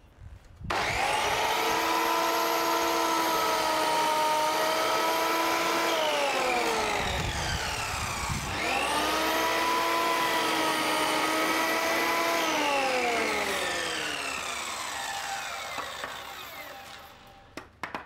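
Electric mitre saw running twice: each time the motor starts abruptly, runs steadily at full speed while cutting a wooden board, then winds down with falling pitch as the blade coasts to a stop. A couple of light knocks near the end.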